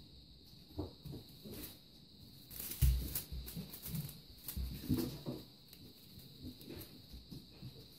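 Russian Blue kittens scuffling over a feather wand toy: rustling feathers, pats and light thuds of paws and bodies on a fabric mat, loudest in a thud about three seconds in.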